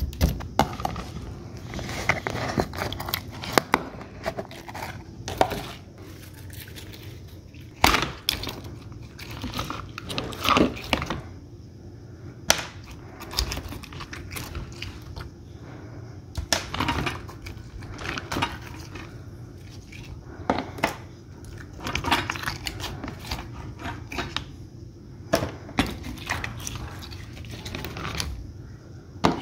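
Hand and spoon working through old, runny slime in a plastic food container to pull out plastic toy lizards: irregular wet squishing and sloshing, broken by sharp clicks and knocks of plastic against the tub.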